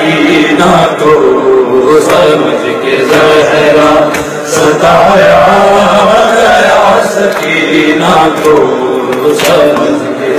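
A man chanting a noha, a Shia mourning lament, into a microphone in a steady melodic recitation. Sharp slaps of chest-beating (matam) fall about once a second.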